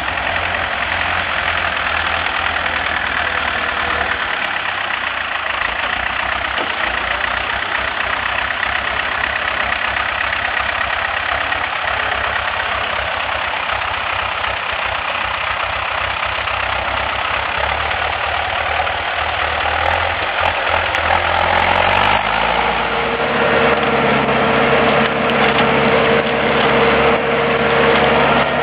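Ursus C-355 tractor's diesel engine running steadily while ploughing. About three-quarters of the way through, its note changes and a steady hum settles in.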